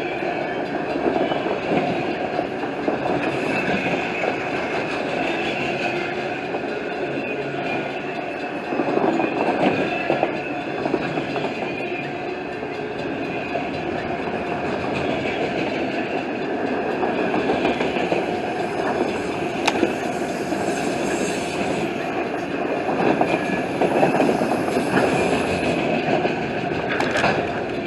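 CSX freight train cars rolling past on the tracks, with steady wheel-on-rail noise and clatter.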